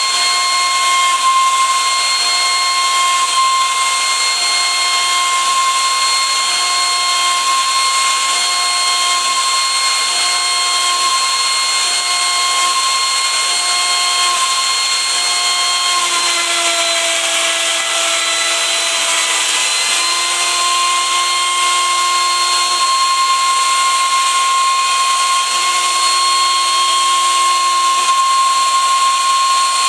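CNC router spindle whining steadily as a 1/4-inch end mill rough-clears a pocket in aspen, over a haze of cutting noise. A lower tone switches on and off about once a second as the machine travels back and forth, and about halfway through the spindle's pitch dips for a few seconds while the cutting noise grows.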